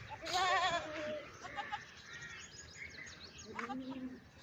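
Goat bleating: one long, quavering bleat with a wavering pitch a fraction of a second in, and a shorter, lower call near the end.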